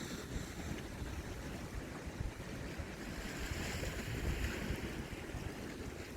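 Wind buffeting the microphone over the wash of sea waves: a steady rough rumble with a hiss that swells a little around the middle.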